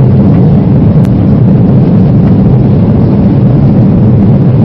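Airliner cabin noise in flight: a steady, loud, low rumble of the engines and rushing air, with one brief click about a second in.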